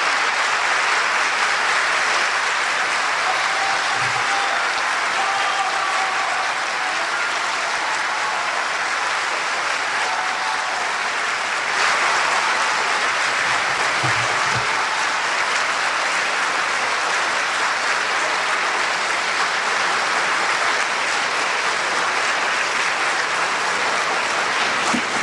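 A large audience applauding: steady, dense clapping that holds at an even level throughout.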